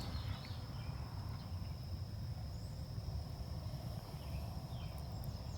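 Steady high-pitched insect drone over a low rumble, with no shot.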